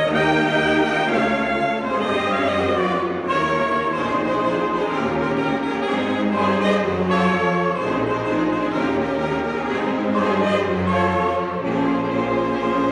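Live saxophone ensemble (alto, tenor and baritone saxophones) playing together, many held notes sounding at once in chords that change every half second to a second.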